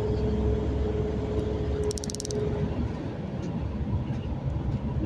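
Road noise inside a moving vehicle on a highway: a steady low rumble with a steady hum that fades out a little past halfway. A brief, rapid high clicking sounds about two seconds in.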